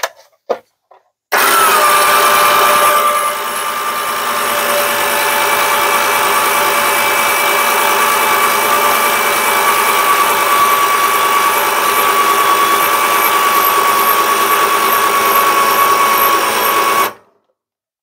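Powerwinch P92001 electric lift winch on a popup camper running under load as it raises the roof. A steady motor whine that dips in pitch just after starting and stops suddenly near the end, with a few short clicks just before it starts.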